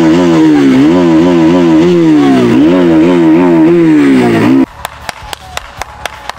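A motorcycle engine revved in quick repeated blips of the throttle, its pitch rising and falling over and over. About two-thirds of the way through it cuts off abruptly to a quick run of about ten single hand claps.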